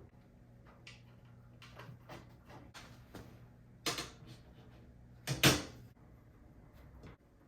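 Light clicks and knocks of things being handled, with two louder sharp knocks, one about four seconds in and a bigger one about five and a half seconds in.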